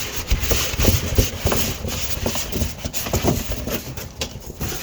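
Packing material being pulled off a newly unboxed miter saw: rustling and scraping with a string of irregular knocks and bumps as parts are handled.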